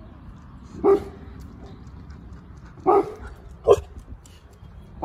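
Puppy barking: three short barks, about a second in and twice more near the three-second mark. These are alert barks at a passing lorry.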